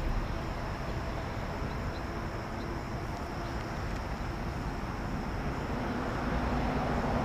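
Steady outdoor background noise, mostly a low rumble like distant road traffic, growing slightly louder near the end.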